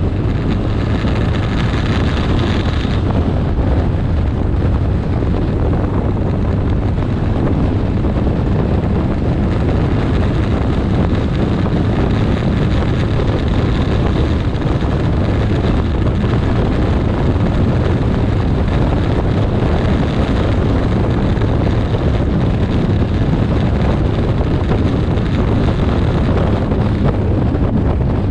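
Steady wind noise on the microphone over the engine and tyre noise of a Kawasaki 1400 Concours inline-four motorcycle cruising at road speed.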